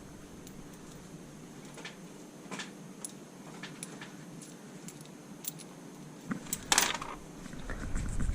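Loose metal hardware, washers and nuts, clinking and clicking as it is handled, with a louder cluster of clinks near the end.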